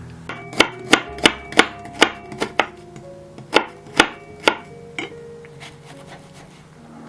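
A knife chopping on a cutting board: a quick run of about seven sharp knocks, a short pause, then three or four more. Soft background music plays underneath.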